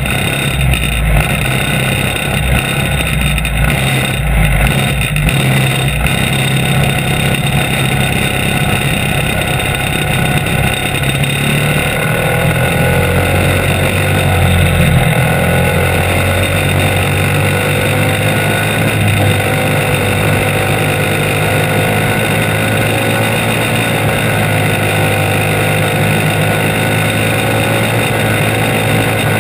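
Caged racing go-kart's small engine running at speed, heard on board as a loud, steady drone among the engines of other karts. About halfway through, its pitch can be heard rising and falling with the throttle.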